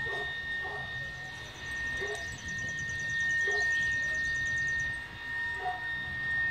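Puppies at play, giving short yips and play growls several times, over a steady high-pitched whine and a low rumble.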